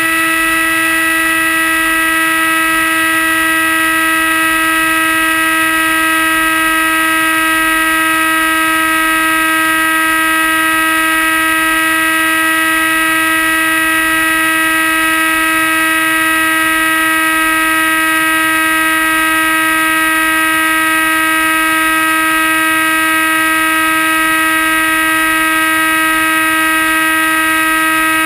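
RC flying wing's motor and propeller heard from the GoPro on board, running at full throttle with a steady whine that holds one pitch. The motor is kept at 100% because the camera's weight penalises the plane.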